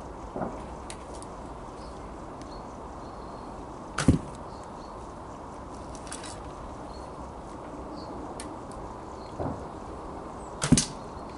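Two shots from a hickory American flatbow, about six and a half seconds apart: each a sharp crack of the bowstring's release followed a split second later by the arrow striking. Quieter knocks of handling come between the shots.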